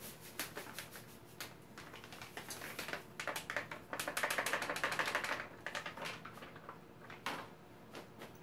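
Crinkling and crackling of a boxed cake mix's inner bag as the dry mix is poured and shaken out into a bowl. The crackle turns rapid and densest about four to five seconds in, with one sharper crackle near the end.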